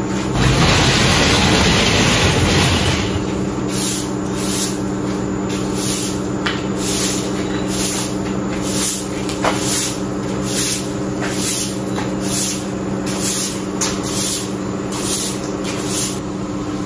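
Long-handled broom sweeping a concrete floor in short, evenly repeated strokes, about one and a half a second, over a steady low hum. In the first few seconds a louder, longer rush of noise comes before the strokes start.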